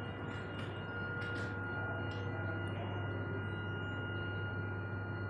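Belt conveyor running over its steel idler rollers: a steady low hum with a thin, constant high-pitched ringing tone over it.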